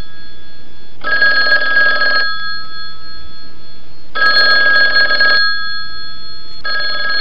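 Telephone ringing and still unanswered: three rings, each a little over a second long, about three seconds apart.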